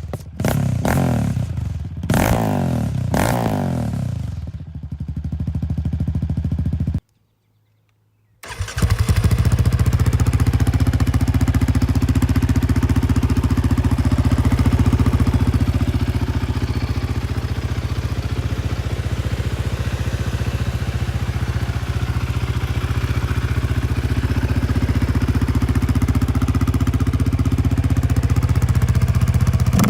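Yamaha Raptor 700's single-cylinder engine through a Barker's dual exhaust, revved in a few blips that fall back in pitch. After a sudden second-long silence, it runs steadily for the rest.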